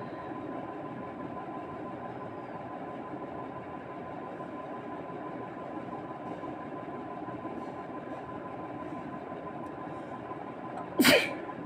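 One sharp human sneeze near the end, set off by tickling the nose with grass, over a steady background hiss with a faint steady tone.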